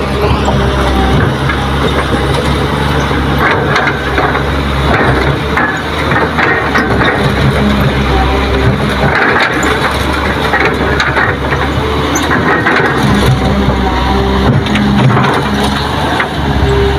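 Diesel engines of a dump truck and a Kobelco SK200 excavator running steadily at a loading site, with irregular crunching and rattling of rocks and soil over the engine hum.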